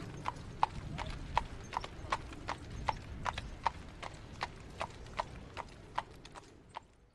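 Horse hooves clip-clopping at an even walking pace, about three steps a second, fading out near the end.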